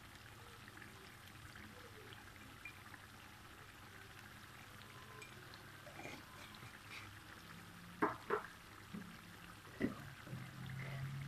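Thick chilli sambal simmering in a wok, bubbling with a steady stream of small pops, and a few sharper, louder pops about eight to ten seconds in.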